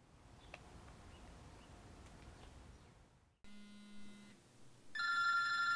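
Faint background hiss with one brief chirp. Then, after a sudden cut, a telephone begins ringing: a short, softer electronic ring, then a much louder ring about five seconds in.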